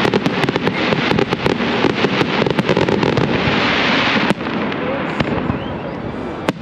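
Fireworks crackling: a dense run of rapid cracks with a hissing spray that cuts off suddenly about four seconds in. Quieter crackle follows, with one sharp crack near the end.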